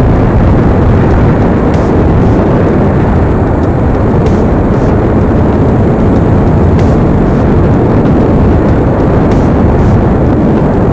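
Loud, steady wind noise buffeting the microphone of a helmet-mounted SJCAM SJ4000 action camera on a motorcycle at road speed; a sponge behind the camera's open skeleton back door is not enough to keep the wind out.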